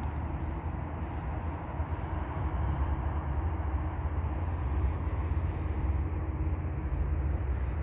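Steady low outdoor rumble, with a brief hiss about halfway through.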